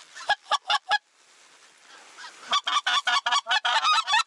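Mouth-blown goose call imitating white-fronted geese, sounded in short, evenly spaced honks. Four notes open, then a pause of about a second and a half, then a faster and louder run of honks.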